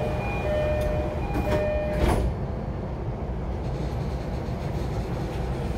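E233-series commuter train's sliding doors closing: an electronic door chime repeats through the first two seconds, then the doors shut with a thud about two seconds in. After that only the steady low hum of the train standing at the platform.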